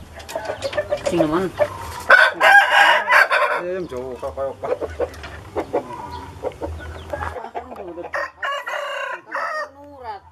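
Roosters crowing and clucking, with one long, loud crow about two seconds in and shorter calls through the rest.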